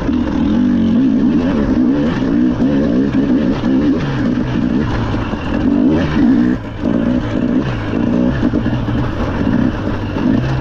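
Rally car engine running hard at stage speed, its pitch rising and falling with the throttle and gear changes, with a brief lift in the sound about six and a half seconds in.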